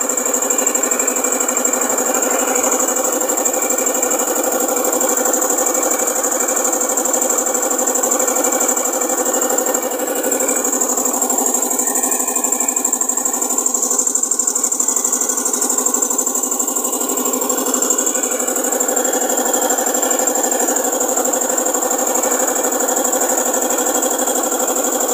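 Tractor engine driving a trailer-mounted air compressor for borewell flushing, running steadily with a high whine over it, as compressed air drives water and foam out of the bore.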